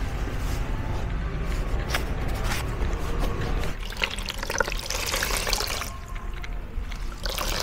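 Water splashing and sloshing as hands wash in a plastic bowl, busiest from about four to six seconds in.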